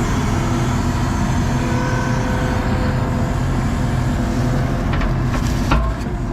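ASV RT-40 compact track loader's diesel engine running steadily at working throttle, with a steady hydraulic whine over it. A few knocks and one louder thump come near the end.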